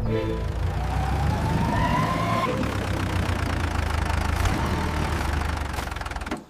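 A steady low engine-like rumble under a rushing noise, with a whine rising in pitch over the first two seconds or so; the sound cuts off suddenly at the end.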